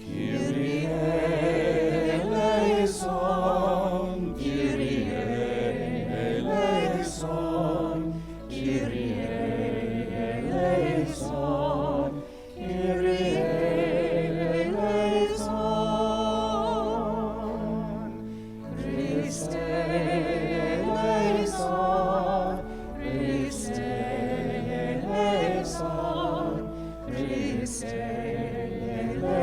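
A choir singing a slow sacred piece over sustained low accompaniment, in phrases of a few seconds with brief breaks between them.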